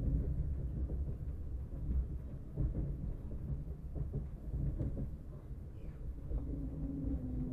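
Lastochka electric train running, heard from inside the carriage: a steady low rumble of the wheels on the track. A humming tone sounds at the start and comes back about six seconds in.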